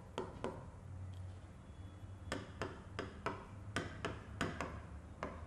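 Stylus tip tapping and clicking against the glass of an interactive touchscreen while words are handwritten: about a dozen soft, irregular ticks, most of them in the second half.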